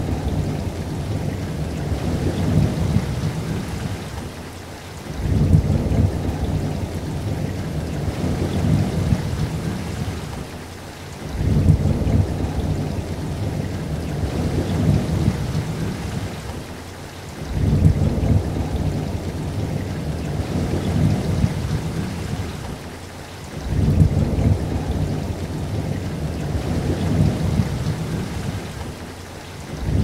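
Rain with low rumbling thunder. A deep rumble swells sharply and fades about every six seconds, repeating at exactly even spacing as a looped recording does.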